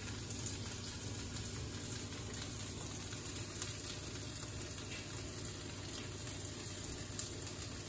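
Russet potato pieces frying in a pan, a steady sizzle with a few faint crackles.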